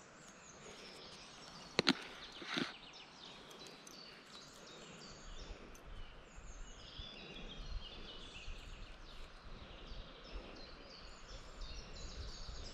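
Songbirds chirping and singing in many short sliding notes. Two sharp clicks close together and a brief scuff come about two seconds in, and a low rumble sets in about halfway through.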